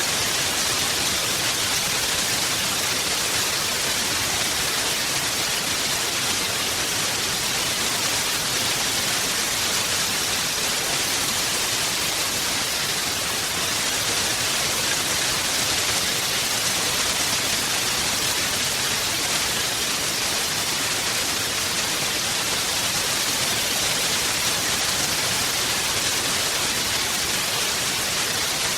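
Heavy rain falling in a steady, even hiss with no breaks.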